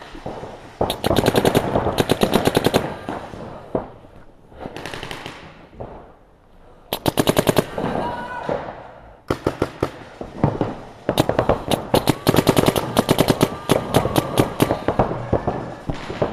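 Electronic paintball markers firing reusable reballs in rapid strings of shots, several bursts about a second or more apart, the longest lasting a few seconds near the end.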